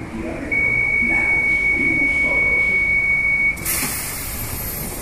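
Metro de Medellín train's door-closing warning: a steady high beep held for about three seconds, then a burst of air hiss as the doors slide shut.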